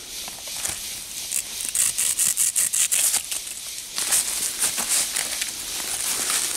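Footsteps crunching through a thick layer of fallen bamboo leaves, rapid crackling and rustling in two stretches, the second starting about four seconds in.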